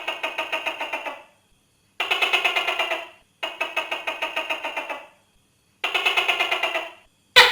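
Tokay gecko calling: four rasping rattles of about a second and a half each, every one a rapid run of about nine pulses a second, with short pauses between. A sharper, louder call with a falling pitch starts near the end.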